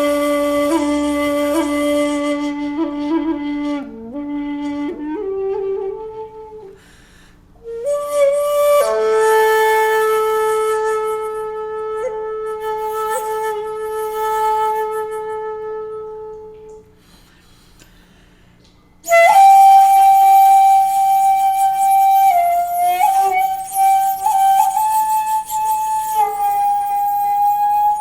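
A 2.4 shaku shakuhachi by Ichijo Kobayashi played in long held notes with small pitch bends and slides, broken by two short pauses for breath. The last phrase, from about two-thirds through, jumps to a higher register and is louder.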